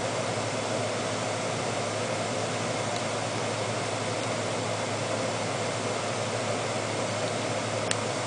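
Steady room air conditioner running with an even hum and hiss. A single sharp click comes near the end.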